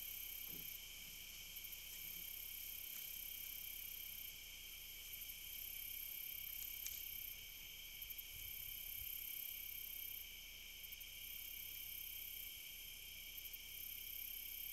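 Chorus of crickets and other insects chirping steadily at several pitches at once, the highest one pulsing on and off.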